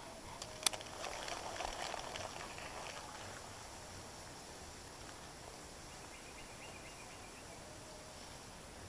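Maguro Escuro baitcasting reel during a cast: a sharp click just over half a second in, then about two seconds of the spool whirring as the line pays out, dying away.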